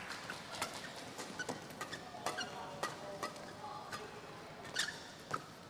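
Badminton doubles rally: sharp racket strikes on the shuttlecock come roughly once a second, with shoes squeaking on the court between hits.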